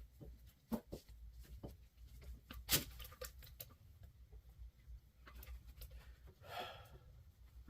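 Scattered light knocks and clicks from handling a brake caliper and cleaning tools, with one sharper knock nearly three seconds in and a brief rustle near the end, over the steady low hum of a garage fan.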